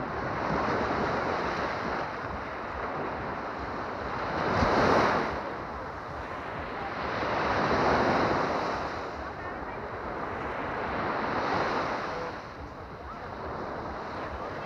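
Baltic Sea surf breaking and washing up a sandy beach, swelling and fading every three to four seconds. The loudest break comes about five seconds in. Wind rumbles on the microphone underneath.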